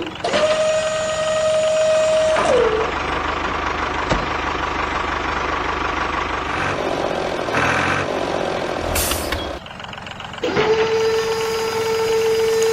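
A truck horn sounds one long blast that sags in pitch as it lets go. Then a truck engine runs, with a short hiss of air near the end. A second long horn blast follows, sagging in pitch as it ends.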